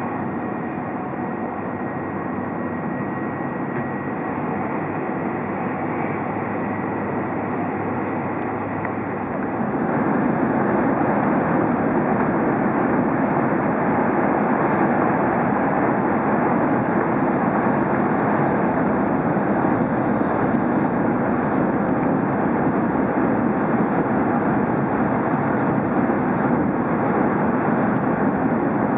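Steady running noise of an E5 series Shinkansen at high speed, heard from inside the passenger cabin; it gets louder about ten seconds in.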